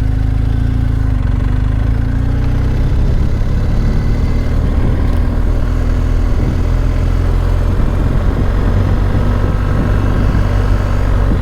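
BMW R 1250 GS Adventure's boxer-twin engine running steadily as the motorcycle rides along, getting a little louder about three seconds in.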